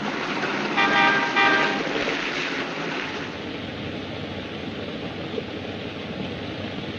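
A car horn honks twice in quick succession over street traffic noise. From about three seconds in there is only an even hiss.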